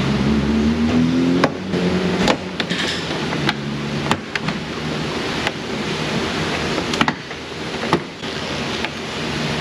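Plastic push-pin clips on a Ford door panel popping loose one by one as the panel is pried off with a trim tool: about seven sharp snaps over a steady shop background hiss.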